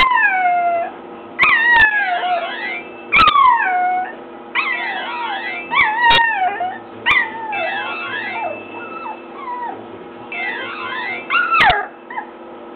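A nine-week-old puppy howling along to a cell phone ringtone, drawn-out falling-pitch howls and yips over the ringtone's short melody, which repeats every couple of seconds from the phone's small speaker.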